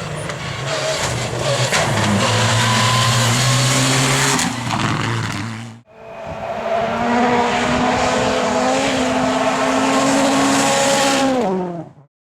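Rally cars' turbocharged engines running hard, in two separate passages. The first cuts off abruptly about six seconds in. In the second, the engine note holds steady, then drops in pitch just before it cuts off.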